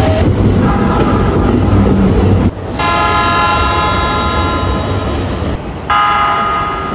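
Keikyu electric commuter train's horn: a held horn tone over the rumble of a running train, then, after an abrupt cut, a long steady horn blast of about three seconds. Another horn blast begins about six seconds in.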